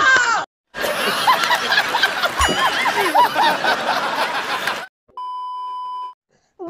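Hearty laughter from several people, stopping just before five seconds in. Then a steady test-tone beep lasting about a second, the kind played with TV colour bars.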